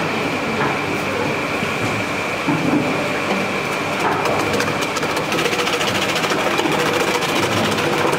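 Electric vegetable-slicing machine running with a steady high motor whine, its spinning blade chopping peeled red onions into rings. A dense, rapid chopping clatter builds from about four seconds in.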